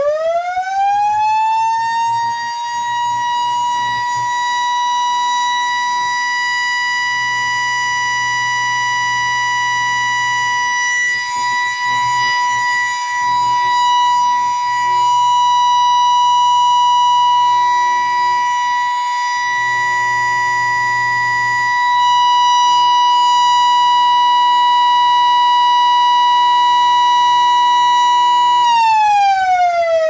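Federal Signal Model D motor-driven siren winding up within a second or two to a steady, very high-pitched wail and holding that one tone. Near the end it begins winding down, the pitch falling.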